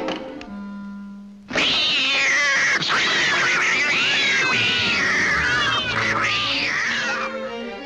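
A cartoon cat screeching and yowling in pain, a loud wavering cry that breaks out suddenly about a second and a half in and goes on for about six seconds. Before it, a single low note is held in the orchestral score.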